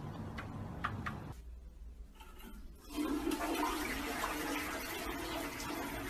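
Toilet flushing, water running and swirling into the bowl, starting about three seconds in and going on steadily.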